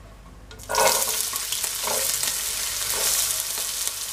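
Chopped onion and ginger dropped into hot oil in a nonstick pan, sizzling suddenly about a second in and then frying steadily.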